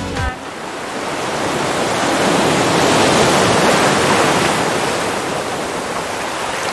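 Ocean surf: one wave's rush swells up to a peak about three seconds in and then slowly washes back and fades.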